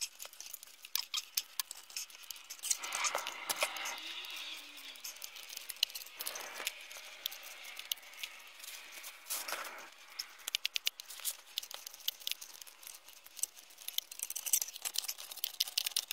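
Ratchet clicking in quick runs while a 13 mm exhaust manifold bolt, loosened with penetrating fluid, is turned out, with short pauses and a few brief scraping noises between the runs.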